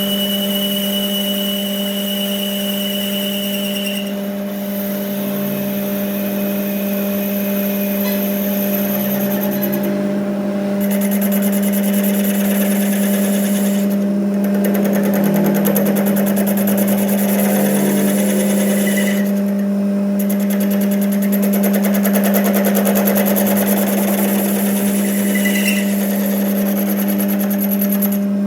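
Workshop machinery running with a steady hum, overlaid by a hissing, crackling high-pitched noise that cuts out briefly several times.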